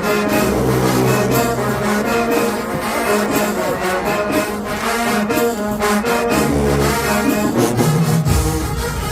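Marching band playing: brass with low sousaphone notes held for a second or so at a time, over a steady drum beat.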